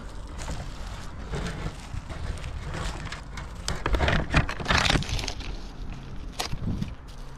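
Dry wood crackling and snapping with rustling, as dead twigs and bark break under handling. The crackling is loudest and densest about four to five seconds in.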